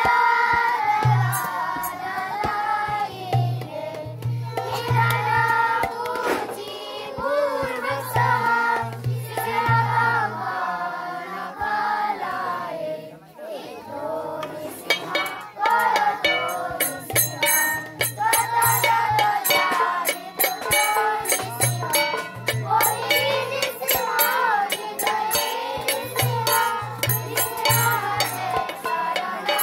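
Group devotional kirtan: children's voices singing a chanted melody over a hand drum played in short runs of low beats. About halfway through, small hand cymbals join with a fast, steady metallic ticking.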